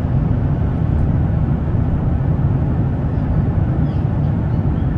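Airliner cabin drone: a steady, low, rushing rumble of jet engines and airflow.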